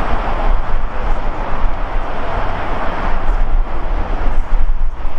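Jet airliner engines at an airport: a steady rushing roar, with an uneven low rumble that swells and dips beneath it.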